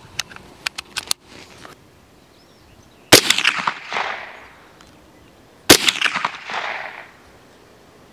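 .22 LR rimfire rifle firing two shots about two and a half seconds apart, each followed by an echo that fades over about a second. A few light clicks come in the first second.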